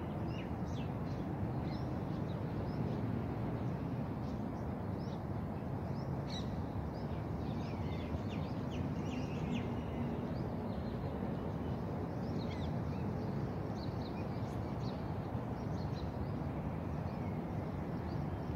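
Birds chirping and calling throughout, many short high chirps, over a steady low background rumble.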